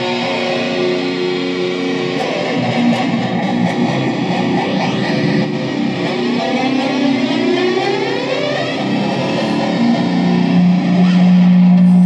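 Electric guitar sound running through effects, with held notes and sweeping, warbling pitch changes in the middle as the knobs are played with. From about nine seconds a loud, steady low note takes over.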